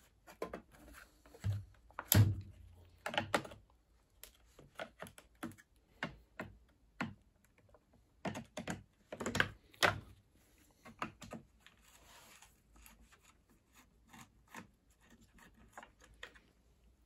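Irregular clicks, taps and knocks of hard plastic parts and a screwdriver, as a Samsung Ecobubble washing machine's plastic door assembly is handled and worked on to get at its screws. A few louder knocks come about two seconds in and around the middle.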